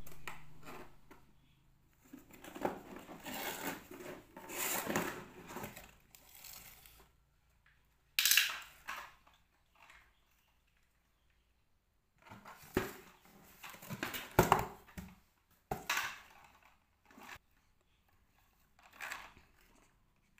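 Cardboard box and plastic toys being handled: irregular rustling, scraping and knocks, in short clusters with quiet gaps between.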